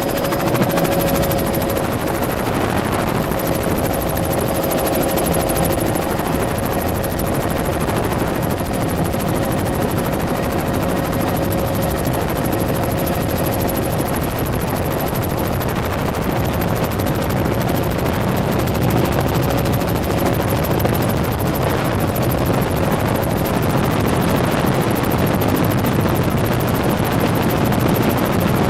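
Helicopter in flight, its engine and rotors making a loud, steady drone heard from on board. A steady whine runs through it and fades out about two-thirds of the way through.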